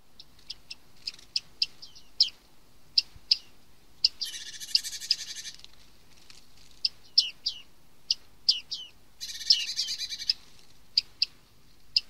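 Bearded reedlings calling: a run of short, sharp, ringing 'ping' notes, several a second, broken twice by a longer buzzy rattle about a second long.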